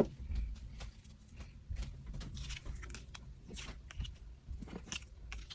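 Scattered light taps and rustles of photocards and album paper being handled, with a sharper knock at the start and another about four seconds in.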